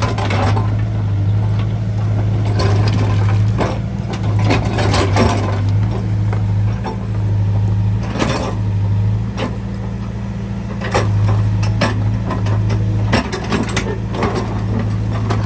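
Backhoe loader's diesel engine running steadily, with repeated irregular metallic clanks and knocks as it digs.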